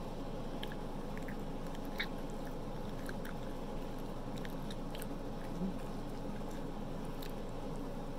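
Person chewing pizza with the mouth closed and tearing at the crust by hand: scattered soft clicks and mouth sounds over steady background noise.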